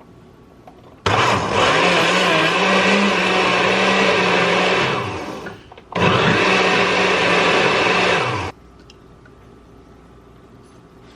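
Countertop blender blending a thick smoothie of frozen bananas and plant milk. It runs about four seconds, slows and stops, then runs again for about two and a half seconds and cuts off.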